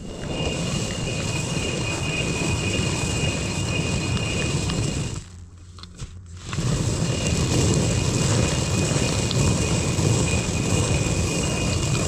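Stone hand quern grinding grain into flour: the upper millstone is turned by its wooden handle on the lower stone, giving a steady rough grinding rumble with a thin high whine. It stops briefly around five seconds in, then starts again.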